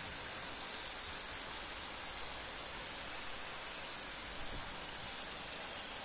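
HO-scale coal hopper train rolling along the track: a steady hiss of many small metal wheels on rail, with a few faint clicks.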